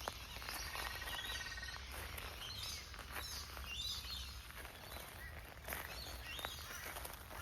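Birds chirping and calling, with a short rapid trill about half a second in and a few sharp clicks over a steady low background rumble.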